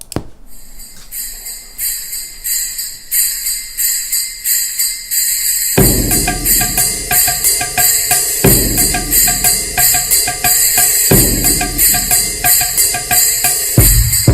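Music played through a KRK Rokit 6 G3 two-way active studio monitor: a rhythmic beat with a jingling, bell-like high part. A deep bass joins a little before halfway and drops out briefly a few times.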